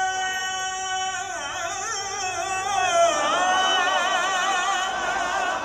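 A man singing a manqabat, an Urdu devotional praise song. He holds a long steady note for about the first second, then ornaments it with a wavering, sliding pitch.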